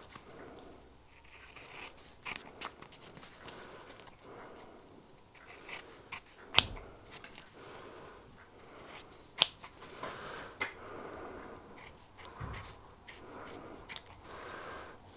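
Scissors snipping through thin gasket paper, a quiet run of short, irregular cuts as the gasket is trimmed to shape, with two sharper clicks of the blades about six and a half and nine and a half seconds in.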